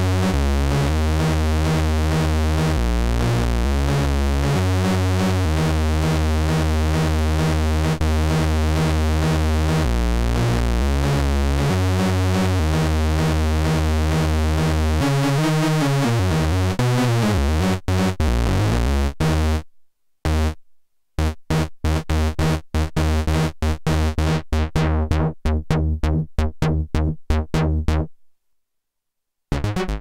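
Homemade Ad-vantage 03m analog synthesizer playing a repeating low, buzzy note pattern. About halfway through the pitch wobbles, and then the sound turns into rapid choppy short notes with breaks between them. It stops about two seconds before the end, then starts again.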